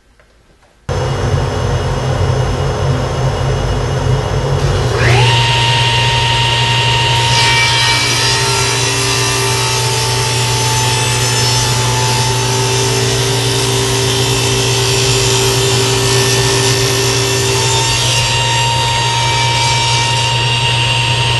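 A dust collector switches on abruptly about a second in. About five seconds in, the table saw's motor starts with a rising whine that settles to a steady pitch. The saw's hollow-ground planer blade then rips a thin strip off a wooden block, the tone shifting while the wood is in the cut.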